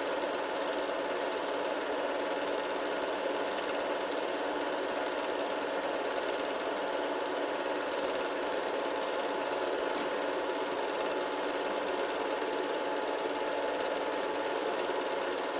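Film projector running with a steady mechanical whir, the sound of a silent home movie being played back.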